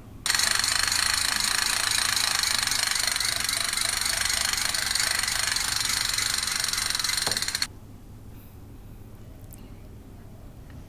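Toy SCAR assault rifle's battery-powered machine-gun effect: a loud, fast, steady rattle lasting about seven seconds that stops abruptly.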